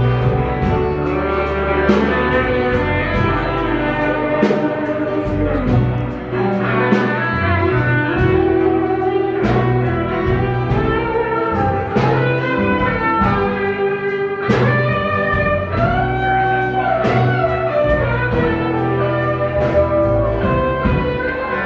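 Live band playing an instrumental break: a guitar lead with bending notes over bass and drums.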